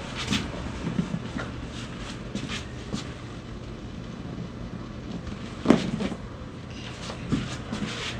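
A chiropractic adjustment: one sharp joint crack about six seconds in, the loudest sound, among lighter clicks and rustling.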